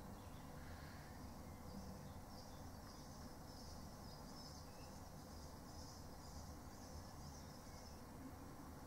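Quiet outdoor background: a low steady rumble, with faint high-pitched bird chirping from about two seconds in until near the end.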